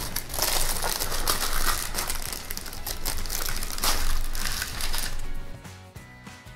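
Plastic wrapping crinkling and rustling as a statue is pulled out of it; the crinkling stops about five seconds in, leaving background music.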